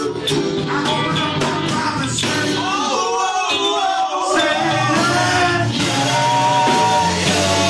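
Gospel band music: a lead voice singing over drums and a steady low accompaniment.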